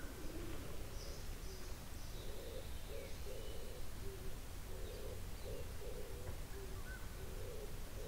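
Forest birds calling: one bird gives a long series of short, low hooting notes, about two or three a second, while other small birds chirp high and thin now and then, over a low steady rumble.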